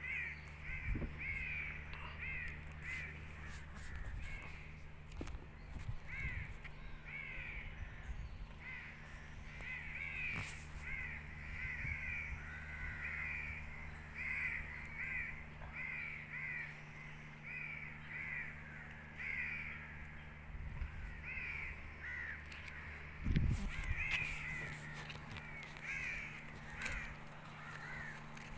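Crows cawing over and over, many short calls in quick succession, over a steady low hum, with a single thump late on.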